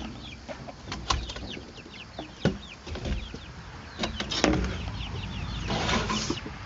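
Young chickens peeping: many short, falling chirps, with a few sharp knocks in between.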